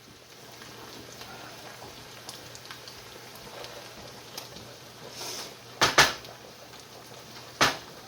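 Steady low hiss of food cooking in a pot on the stovetop, with two quick clinks of kitchenware about six seconds in and one more near the end.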